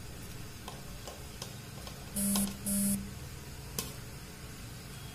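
Two short buzzes back to back about two seconds in, each a low steady hum with a hiss above it, over faint scattered clicks and ticks.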